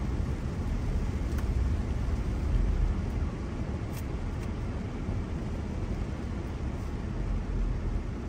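Car cabin noise while driving slowly over wet pavement: a steady low rumble of engine and tyres, with a couple of faint ticks.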